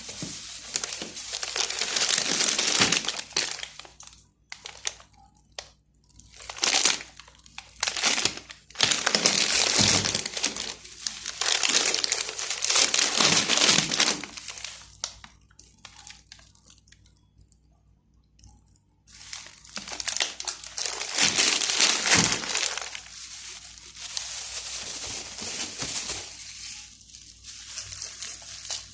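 Plastic bags and food packaging crinkling in irregular bursts as they are handled, with a quiet pause of a few seconds past the middle.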